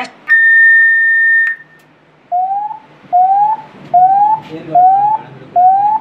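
Ceiling loudspeaker of a public address system connected to a fire alarm, playing an alarm signal: one steady high beep about a second long, then a short gap, then a rising tone repeated five times, about one every 0.8 seconds.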